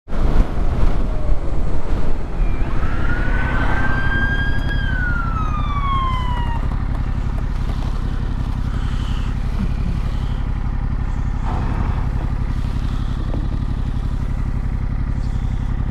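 Yamaha MT-07's parallel-twin engine running, louder with riding noise for the first couple of seconds as the bike slows, then idling steadily. A police siren sounds once a few seconds in, a single wail that rises, holds and falls away.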